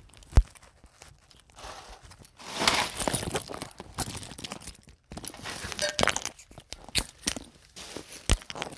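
Rustling and crinkling handling noise with scattered sharp knocks and clicks, as of a phone microphone rubbing and bumping against cloth while the lens is covered; the rustling is thickest in the middle.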